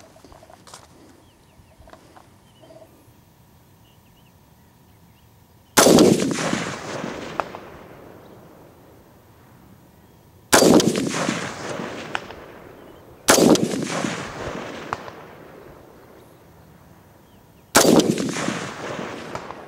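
Four single rifle shots from an AR-15 with a DSArms ZM4 5.56 upper, a few seconds apart, the first about six seconds in. Each crack is followed by a long rolling echo that dies away over about two seconds.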